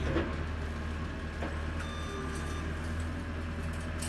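Skid steer engine running steadily in the distance, a constant low drone as the machine drives off.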